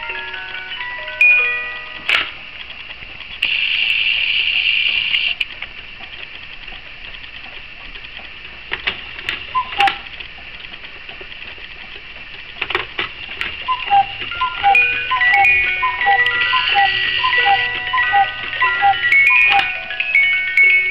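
Cuckoo clock's music box playing a tune of short plucked notes, which stops about two seconds in. A brief rushing sound follows, then a few sharp clicks as the minute hand is turned by hand, and the music box starts playing again about fourteen seconds in.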